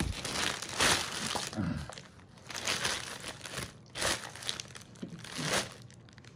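Gift packaging being handled and pulled open by hand, in about five short crinkling rustles with brief pauses between them.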